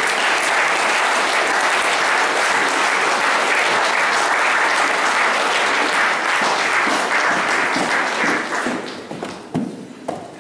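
Audience applauding, a dense steady clapping that thins out about eight seconds in to a few scattered claps.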